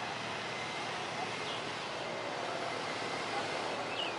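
Airbus A320 jet engines at take-off power during the take-off roll, heard from a distance as a steady, even rushing noise. A few faint high chirps sound over it.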